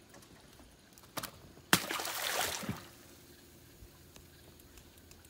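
A light knock, then a sharp splash with about a second of spray after it, as a fish is dropped into the water.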